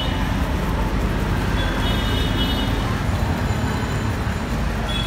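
Steady street traffic noise with a low engine rumble, and a brief high, thin tone about two seconds in.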